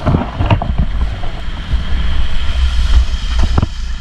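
Off-road jeep driving through a shallow river: water splashing and spraying, over a low engine rumble and wind buffeting the microphone. A few sharp splashes about half a second in and again near the end.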